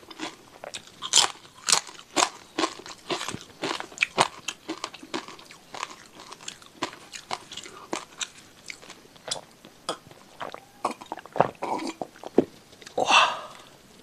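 Close-miked crunching and chewing of crisp kerupuk crackers: many sharp, irregular crunches, with a brief louder rush of sound near the end.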